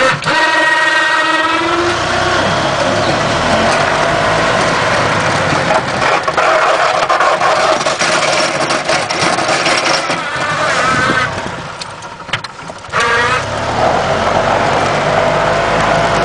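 The gas engine of a 1992 E-Z-GO golf cart rises in pitch as the cart pulls away, then runs steadily under load while pushing a snow plow. About three-quarters of the way through it drops away for a second, then speeds up again and settles back to steady running.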